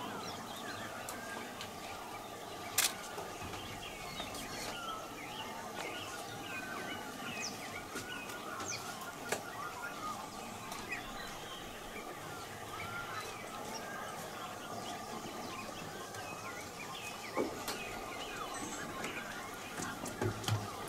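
Outdoor ambience of many birds chirping and calling at once over a steady background hum, with a single sharp click about three seconds in.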